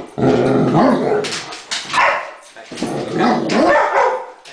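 Great Dane barking in two long, wavering bouts, with a short bark between them.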